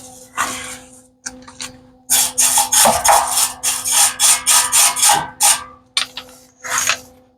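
MIG welder arc crackling in short stitch-welding bursts, about three a second, over a faint steady hum.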